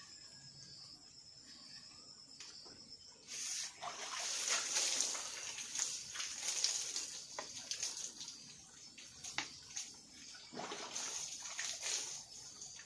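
Water splashing and trickling over a bamboo dish rack as it is scrubbed and rinsed by hand. The water starts about three seconds in, eases off midway and picks up again near the end, with a few sharp knocks against the bamboo.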